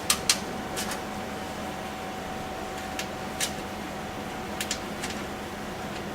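Scattered sharp clicks and taps, a few at a time with gaps of a second or more, from a screwdriver fastening the two screws of a PC case's side cover. A steady hum runs underneath.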